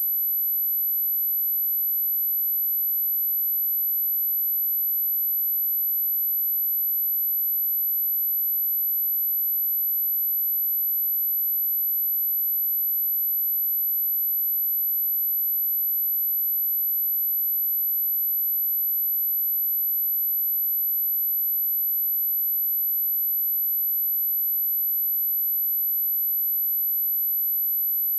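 A pure electronic sine-wave test tone at 11948 Hz, a single very high-pitched steady whistle held unchanged throughout.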